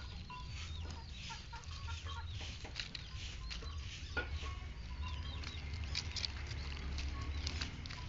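Birds chirping in many short, quick calls over a low steady hum, with small sharp clicks and rustles from a lovebird nibbling at long leaves.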